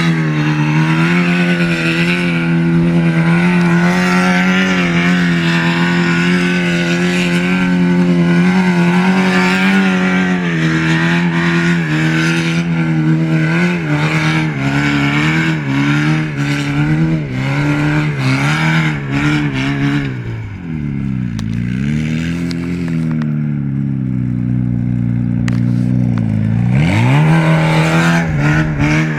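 Off-road buggy's engine running hard at high revs, the pitch wavering up and down as it slides in circles. About twenty seconds in the revs drop away, then climb back up near the end.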